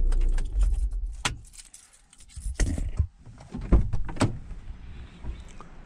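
A low steady rumble dies away about half a second in, then keys jangle with a series of sharp clicks and knocks, as when keys and gear are handled.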